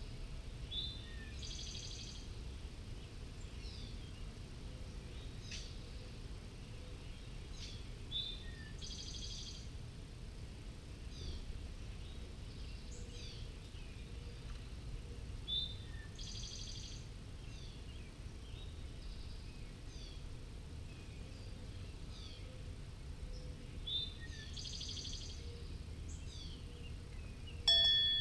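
A wren singing the same short phrase four times, about every eight seconds: a single note, then a quick high trill lasting about a second, with short downward chirps scattered between. Just before the end a bell-like chime rings out loudly and keeps ringing.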